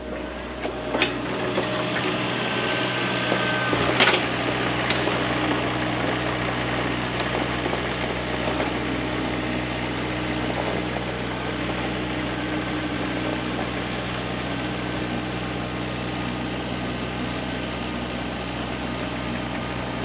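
Excavator's diesel engine running steadily, with a few sharp clanks in the first four seconds.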